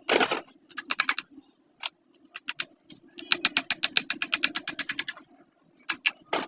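Sewing machine mechanism clattering in a quick, even rhythm of about ten clicks a second for roughly two seconds midway. Scattered single clicks and knocks come before and after it.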